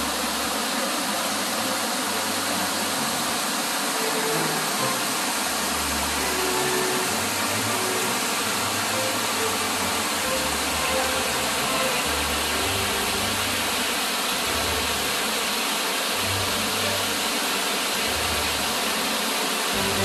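Rushing water of a mountain stream cascading over sloping rock slabs into a pool: a steady, even rush at a constant level.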